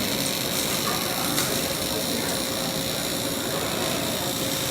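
Steady machinery noise: a low hum with a held mid-pitched tone and a high-pitched hiss, all at an even level.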